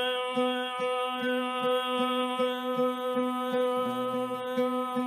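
A man's voice holds one long sung note over an oud. The oud plucks a repeated note about two or three times a second.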